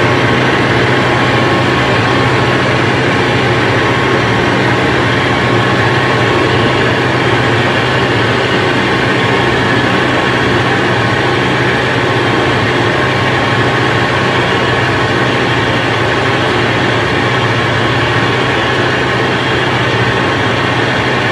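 Wolfking C.250 UNI industrial meat grinder running empty, its feed arm turning in the stainless-steel hopper: a loud, steady mechanical hum.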